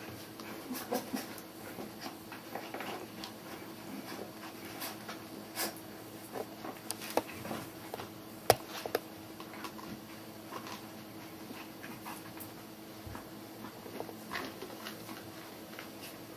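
Border Collie puppies at play: panting and scuffling, with scattered light clicks and taps and two sharper clicks about halfway through, over a faint steady hum.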